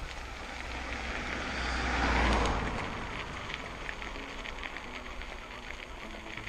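Wind rushing over the microphone of a bike-mounted camera, with tyre noise on a gravel path, as a mountain bike is ridden. The rush swells to its loudest about two seconds in, then settles back to a steady level.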